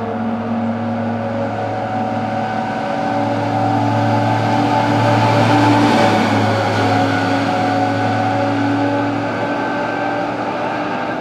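Tatra TerrNo1 fire tanker's diesel engine pulling as the truck approaches and passes close by, with tyre noise. It is loudest about halfway through, then recedes as the truck drives away.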